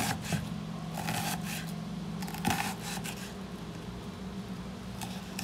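Kitchen knife slicing a red onion on a wooden cutting board: a few crisp cuts, irregularly spaced about a second or so apart, some ending in a light knock on the board. A steady low hum runs underneath.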